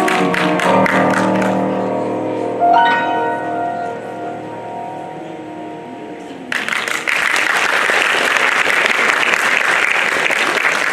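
A grand piano plays its closing notes, ending on a chord struck about three seconds in that rings and fades away. About six and a half seconds in, an audience breaks into applause.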